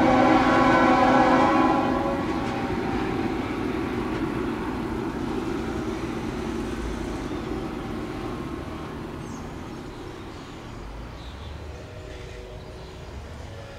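Diesel locomotive horn sounding a chord that stops about two seconds in, then the train's running noise fading away as it passes.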